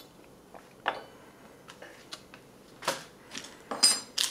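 Scattered light taps and clicks of a thin folding sheet-metal ration stove being handled and set down on a wooden table, with a louder rustling handling noise near the end.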